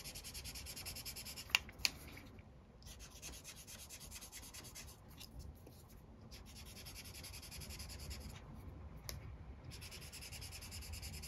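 Brush-tip art marker nib rubbing back and forth on paper in runs of quick strokes with short pauses, as yellow ink is worked over a blue swatch to blend the colours. Two sharp ticks come about a second and a half in, and another near the end.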